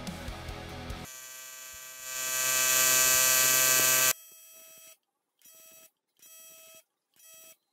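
TIG welder arc buzzing: a steady electric hum that swells about two seconds in into a loud, hissing buzz, cuts off just after four seconds, then three short buzzes as the arc is struck briefly again.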